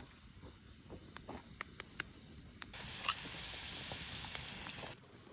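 Wood fire crackling with scattered sharp pops, joined about halfway through by a steady hiss that lasts about two seconds and then stops.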